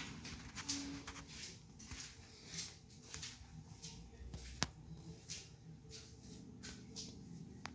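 Faint room tone with scattered soft rustles and small clicks, and one sharp click about halfway through.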